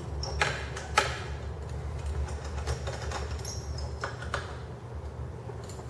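A 5 mm T-handle Allen wrench turning in the socket-head bolts of a WM80 two-stroke engine cylinder as they are loosened. It gives a few sharp clicks, the loudest two in the first second, over a steady low hum.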